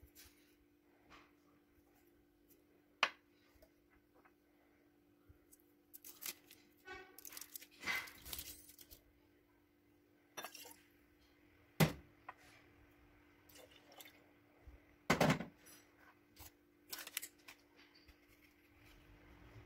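Glass jar, glasses and spoon clinking and knocking on a stone counter as ingredients are added to a glass jar, with a stretch of pouring and handling in the middle. A faint steady hum runs underneath.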